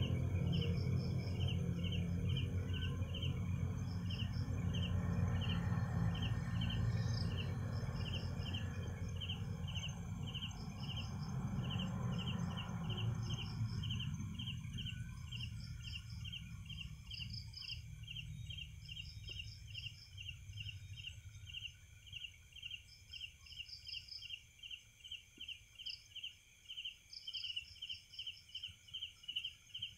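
Night insects chirping: a cricket-like insect repeats short chirps at a steady, even pace, while another insect gives short groups of higher chirps now and then. A low background rumble fades away about halfway through.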